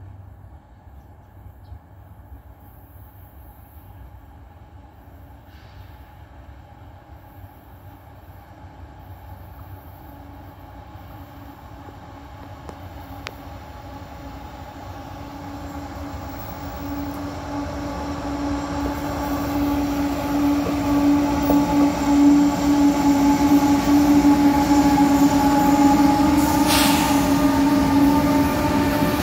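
Union Pacific diesel freight locomotive approaching around a curve and passing close, hauling hopper cars: a steady engine note that grows louder from about halfway through. A brief rush of noise comes near the end.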